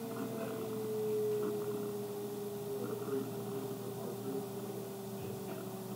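A steady tone slowly falling in pitch, with a faint low hum beneath it.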